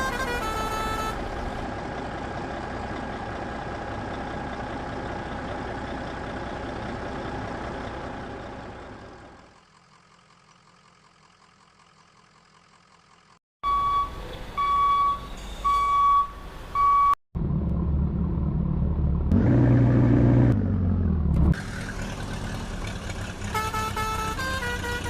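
Truck engine sound effect running steadily and fading out, then a vehicle horn honking four times, then the engine rumbling louder and revving up and back down. Short bursts of music sit at the start and the end.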